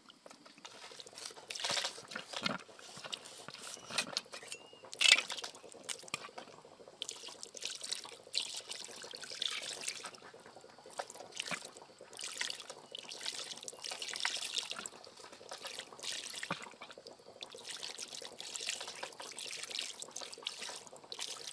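Water splashing and trickling in irregular bursts, the loudest about five seconds in.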